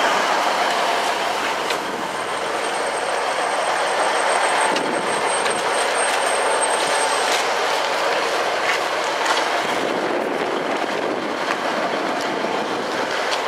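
A train on the rails: a steady rush of wheel and track noise, with a thin high whine for a few seconds near the start.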